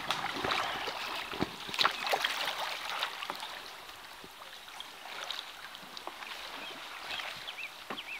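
Kayak paddles splashing through fast-running river water, with sharp irregular splashes over a steady rush of current; the splashing is loudest about two seconds in, then settles into a quieter flow.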